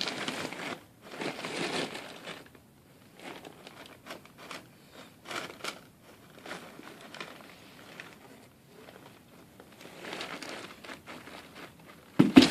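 Irregular rustling and crinkling as a cat shifts about inside a box, in uneven bursts with short pauses, and a louder bump near the end.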